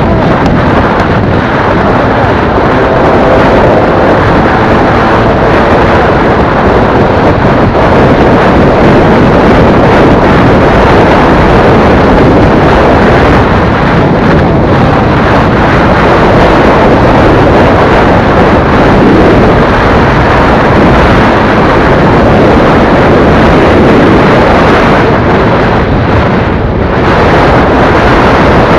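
Wind rushing over the microphone of a motorcycle at highway speed, a loud steady roar with the engine and road noise buried in it. It dips briefly near the end.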